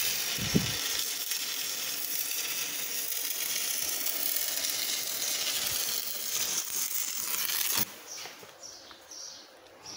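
Electric arc welding: a steady crackling sizzle of the arc on steel, which cuts off suddenly about eight seconds in as the arc is broken.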